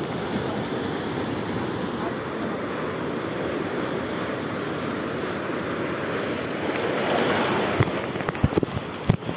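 Sea surf breaking and washing over a rocky reef shore in a steady rushing wash, swelling louder as a bigger wave breaks about two-thirds of the way in. A few sharp thumps come near the end.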